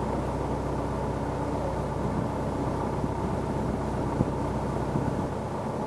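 Engines running steadily at idle: an even, low drone that holds the same pitch throughout.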